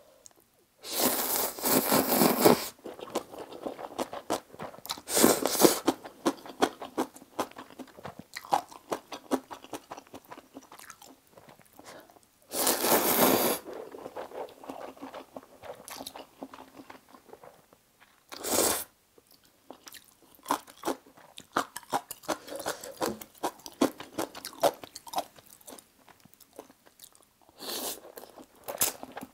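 Close-miked eating of saucy stir-fried instant noodles: about five loud slurps of a second or so each, with steady wet chewing and lip-smacking clicks between them.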